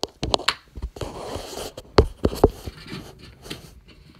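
Close handling noise from the recording phone being moved about: a run of sharp knocks, the loudest pair about two seconds in, with a short stretch of scraping rub just before them.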